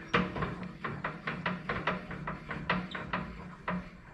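Lathe tailstock being adjusted: a rapid run of clicks and knocks, about four a second, over a low steady hum.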